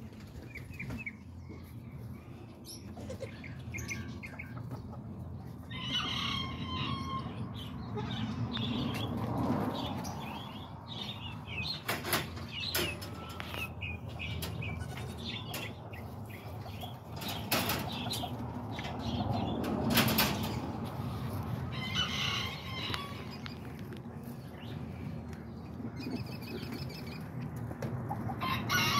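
Bird calls several times over a low rumble and rustling, with a few sharp knocks.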